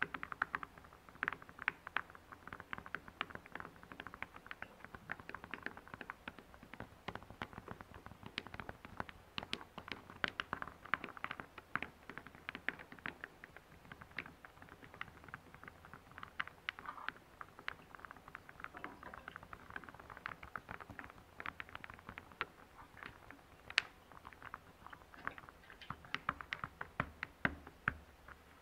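Small round wooden discs clicking and knocking against one another as hands slide and shuffle them across a surface: a dense, uneven run of light wooden taps, thinning briefly past the middle.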